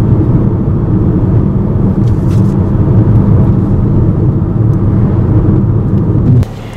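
Steady low rumble of a vehicle that cuts off abruptly about six and a half seconds in, leaving a much quieter low hum.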